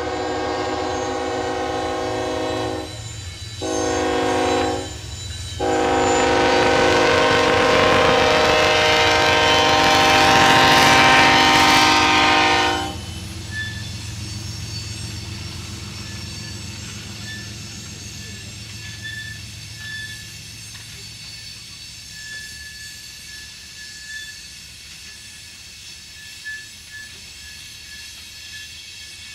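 Union Pacific GE ES44AC diesel locomotive's air horn sounding for a grade crossing: a long blast ending about three seconds in, a short one, then a long blast of about seven seconds that stops about thirteen seconds in, over the locomotives' engine rumble. Then loaded rock hopper cars rolling past, with a faint wheel squeal coming and going on the curve.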